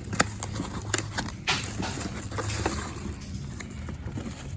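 Scattered clicks and taps, with a brief rustle about a second and a half in, as blister-carded die-cast cars are handled and shuffled inside their cardboard shipping case.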